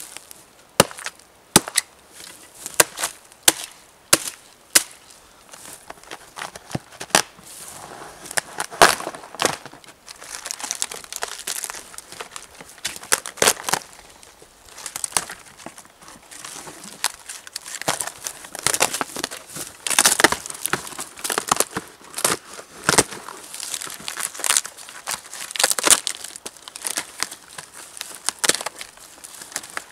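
Hatchet chopping into a fallen birch log: a run of sharp strikes, a little over one a second, for the first five seconds. Then a long stretch of crackling and tearing as birch bark is split and pulled off the trunk.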